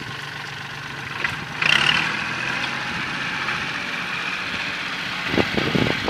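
Kubota L3608 tractor's diesel engine running steadily under load as its front blade pushes soil, with a brief louder surge about two seconds in.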